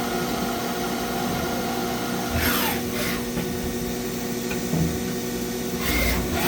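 Steady electric hum of running shop machinery, with brief metallic scraping and handling noises about two and a half seconds in and again near the end.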